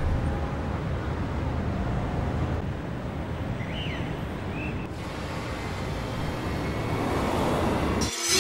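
Suzuki car driving along a road: steady engine and tyre noise, with two faint short high chirps near the middle.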